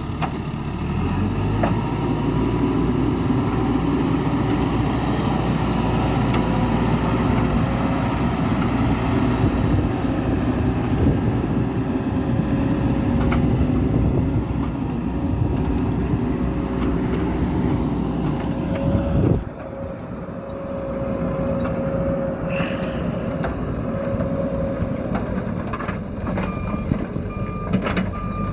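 Hidromek 102B backhoe loader's diesel engine running steadily under working load, easing off a little about two-thirds of the way through. Its reversing alarm starts beeping near the end.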